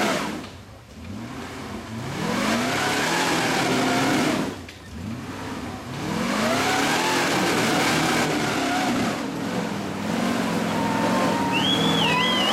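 A Jeep rock crawler's engine revving hard in repeated bursts, rising in pitch and cutting off three times as the Jeep climbs a steep muddy rock ledge, then running more steadily at mid revs. A high wavering whistle comes in near the end.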